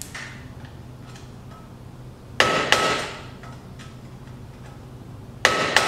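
Hammer striking metal at a car's front wheel hub: two pairs of sharp, ringing blows, the two strikes in each pair about a third of a second apart and the pairs about three seconds apart.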